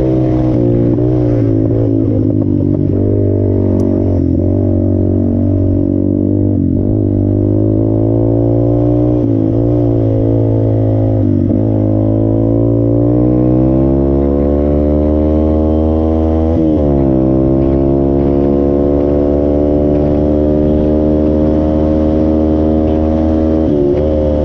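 Off-road vehicle engine running hard on a trail ride, its pitch climbing with the throttle and dropping sharply at gear changes several times.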